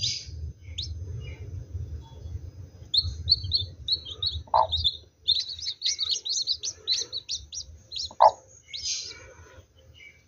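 Newly hatched chicks peeping under a brooding hen: many short, high chirps, sparse at first, then in quick runs from about three seconds in.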